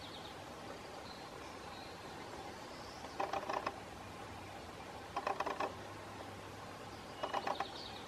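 Pileated woodpecker pecking into a rotting stump while digging for grubs: three short bursts of rapid taps about two seconds apart.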